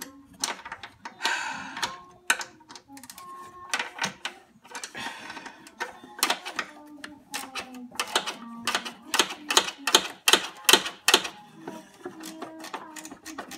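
Irregular sharp clicks and clatter of metal hand tools and parts being handled, coming thick and fast near the end, with brief rustling passages about one and five seconds in.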